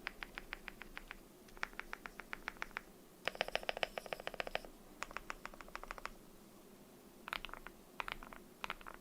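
Typing on a tape-modded, foam-filled M71 mechanical keyboard with lubed KTT Kang White v3 linear switches: quick runs of keystrokes, each lasting about a second with short pauses between, one run in the middle denser and deeper than the rest, and scattered single presses near the end.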